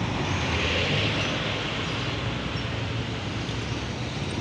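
Road traffic: a pickup truck drives past close by, its tyre and engine noise strongest in the first second or two, over a steady low engine hum.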